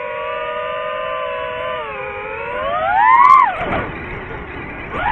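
DJI FPV drone's motors and propellers whining. The pitch holds steady, climbs to a peak about three seconds in as the throttle goes up, drops sharply, then climbs again near the end.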